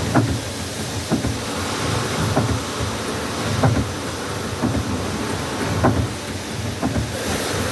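CNC lathe tool turret indexing over and over on a test run, with a short clunk about once a second as it locks at each station, over a steady machine hum.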